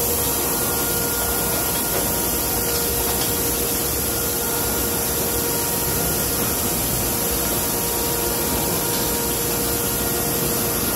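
Steady factory machinery noise with several constant hums, unchanging throughout: the running equipment of a cheese-making plant.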